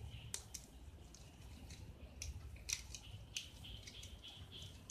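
Thin aluminium soft-drink can being handled and pressed together by hand, giving scattered sharp crinkling clicks. The loudest click comes a little under three seconds in.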